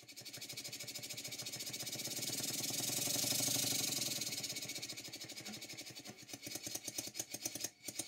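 Stuart No. 4 model steam engine running on compressed air: a fast, even beat of exhaust puffs with a hiss. It grows louder, then fades, and the beats slow and stop near the end.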